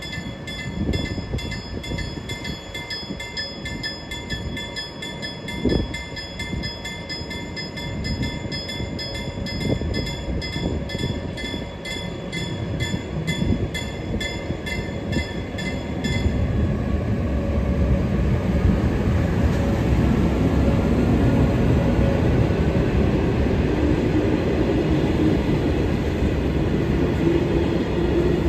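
A level-crossing warning bell dings about twice a second and stops about halfway through. Meanwhile an electric locomotive and its passenger coaches roll into the station, and the rumble of steel wheels on the rails grows louder, with a faint whine near the end.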